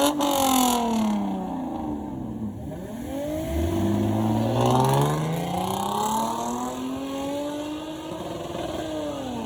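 Luxury car's engine and exhaust revving sharply at the start, then dropping away. From about three and a half seconds in it accelerates hard, with a long, steady rise in pitch.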